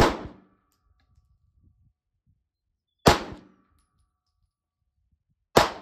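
Three single shots from a semi-automatic pistol fired one-handed, the first at the start, the next about three seconds later and the last near the end, each dying away over about half a second.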